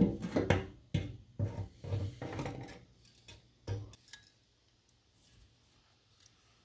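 Clinks and knocks of metal tools and parts being handled, about two a second, stopping about four seconds in.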